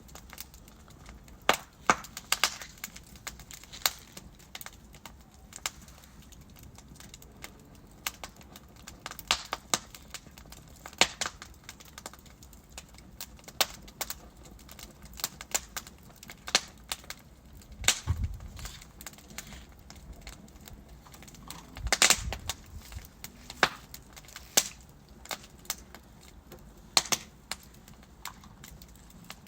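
Wood fire burning in a fireplace: burning logs crackle and pop at irregular intervals over a soft steady hiss, with a sharper burst of pops about three quarters of the way through.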